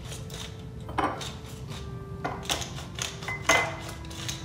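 Tall pepper mill being twisted by hand, grinding black peppercorns in a run of irregular crunching clicks, the loudest about a second in and again around two and a half and three and a half seconds in.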